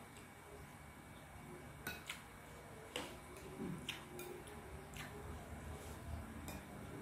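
Metal spoon clinking against ceramic and glass soup bowls, about six separate light taps, over a low steady hum.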